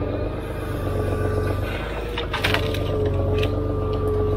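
The HSM 904 skidder's 6.7-litre, 150 hp diesel engine running steadily, with a steady whine over it. A few short knocks come about halfway through.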